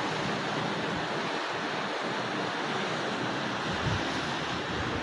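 Black Sea surf breaking on a beach, a steady wash of waves, with wind buffeting the microphone in a few low gusts about four seconds in.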